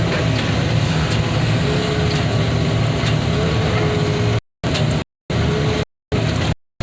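Caterpillar excavator's diesel engine running steadily, with a faint thin tone at times over the low hum. The sound cuts out to dead silence several times in the last couple of seconds, as the recording drops out.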